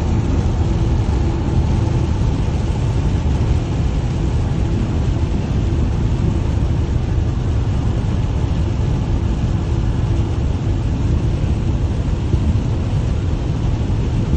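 Steady road and engine noise of a car driving, loud and even throughout.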